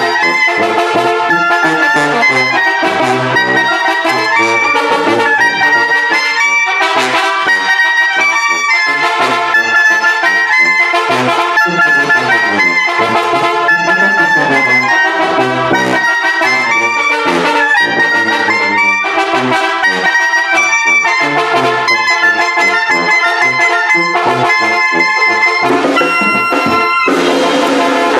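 Oaxacan brass band playing a song: trumpets and trombones carry the melody and chords over a steady percussion beat, ending on a long held chord near the end.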